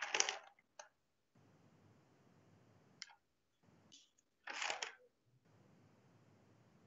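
A few faint, short clicks and rustles, the loudest at the start and about four and a half seconds in, over a low hiss that keeps cutting in and out.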